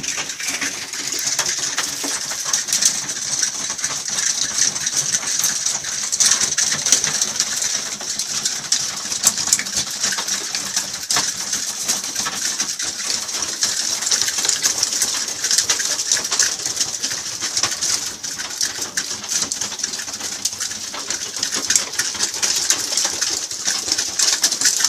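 Tippler pigeons in a loft cooing, over a steady high hiss with many small clicks throughout.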